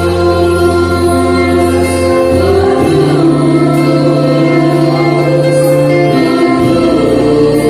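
A Christian hymn with a choir singing over held synthesizer chords and a bass line that changes note every couple of seconds.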